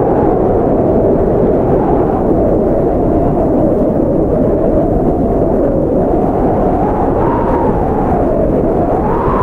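Strong blizzard wind blowing steadily, with a low howl that wavers in pitch and rises near the end.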